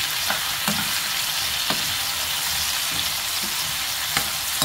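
Sliced kabocha squash sizzling as it stir-fries in oil in a nonstick frying pan. A metal spoon scrapes and clinks against the pan a few times as it is stirred.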